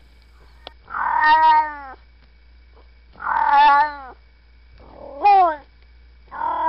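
A cat meowing four times in long, drawn-out meows spaced about a second and a half apart. The third meow rises in pitch at its end while the others fall away, and the last one starts near the end.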